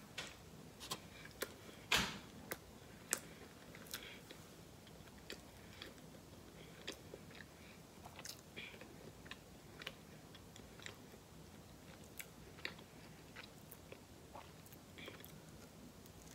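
A person biting and chewing a Hot Pocket close to the microphone: faint, irregular clicks and crunches of the crust, the loudest about two seconds in.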